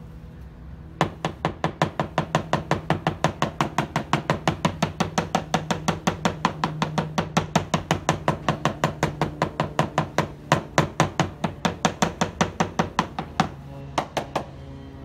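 Plastic-faced hammer tapping rapidly on the fibreglass hull of a Westerly Conway yacht, about five taps a second, sounding the old glassed-over skin-fitting holes for looseness and delamination. The tapping pauses about 13 seconds in, then a few more taps follow near the end.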